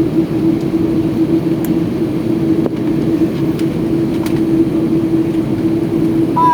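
Inside the cabin of an Airbus A330-300 during takeoff: the jet engines and the airflow make a steady rushing noise, with a constant humming tone running through it. A few faint clicks from the cabin can be heard.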